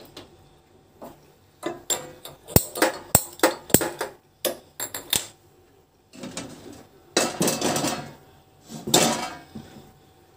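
Metal kadhai clanking against the gas stove's iron grate as it is set on the burner: a quick run of sharp metallic clanks, then two longer scraping stretches near the end.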